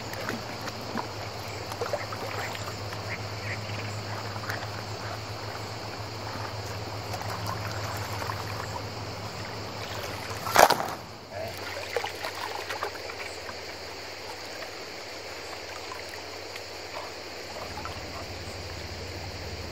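Shallow river water splashing and trickling as a short-handled pick digs into the stony riverbed, with scattered small knocks of stones. One loud, sharp knock about halfway through.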